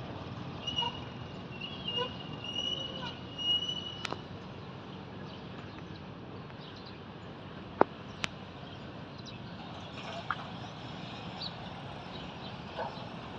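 Steady outdoor background noise, with short high bird calls in the first few seconds and a few sharp clicks later on.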